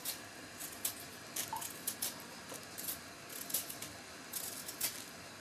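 Knife cutting a peeled potato into pieces, a series of faint, irregular clicks and knocks about two a second.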